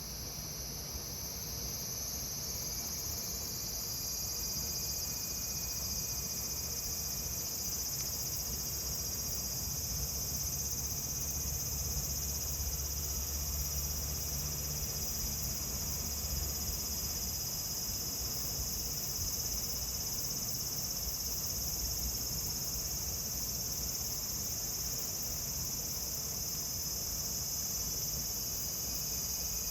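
Cicadas droning steadily in a dense, high-pitched chorus that swells over the first few seconds and then holds.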